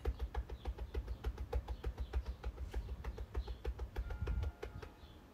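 Fast, even tapping of hands on the chest over the breastbone (thymus tapping), dull thumps at about five or six a second that stop about four and a half seconds in.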